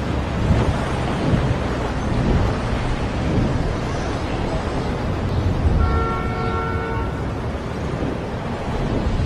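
Steady rushing wind noise with a deep rumble from a fast-flying FPV drone's onboard camera. About six seconds in, a horn honks once with several steady tones for about a second.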